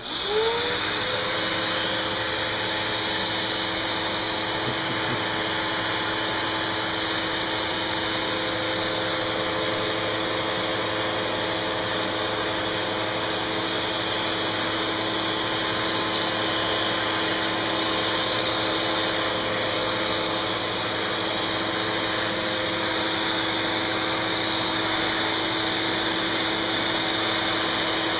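Vacuum cleaner switched on, its motor spinning up in about half a second to a steady whine, then running steadily while its nozzle is worked over a cat's head and fur.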